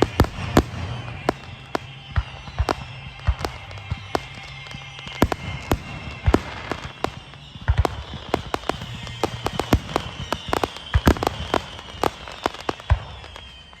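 Fireworks going off: many rapid, irregular pops and bangs over a high whistle that slowly falls in pitch.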